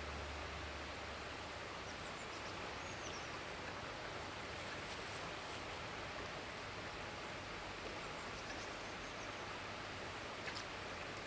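Steady outdoor background noise, a broad even rush, with a few faint high bird chirps a couple of seconds in. The last of the background music fades out in the first second.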